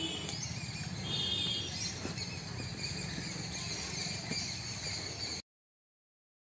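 Small birds chirping in a garden, with a short rapid trill about a second in, over a steady low background hum; the sound cuts off abruptly to silence near the end.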